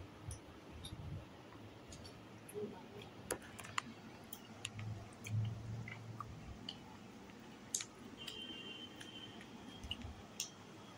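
Quiet close-up eating sounds: scattered sharp mouth clicks and smacks of someone chewing a mouthful of rice and vegetables eaten by hand.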